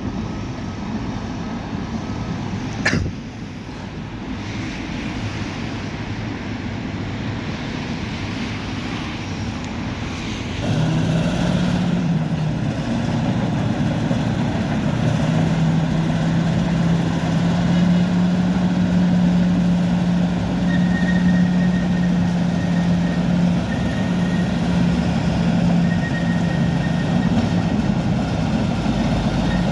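Bulldozer's diesel engine running steadily, then getting louder and holding a higher steady pitch from about a third of the way in, as it works harder. A sharp click about three seconds in, and a faint high tone in broken stretches near the end.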